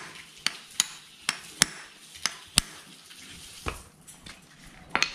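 A farrier's hammer striking metal while a horseshoe is nailed on: sharp taps, mostly in pairs, about eight in all.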